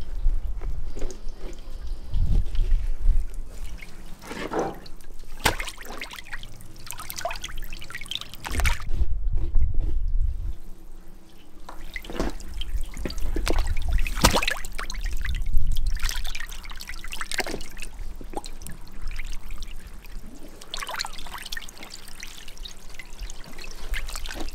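Water trickling and splashing, with scattered knocks and clicks throughout.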